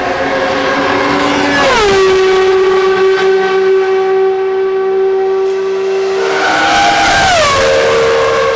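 High-revving Ferrari racing engines passing at speed: a steady high engine note drops in pitch as a car goes by about two seconds in, and a second car passes with another drop in pitch about seven and a half seconds in.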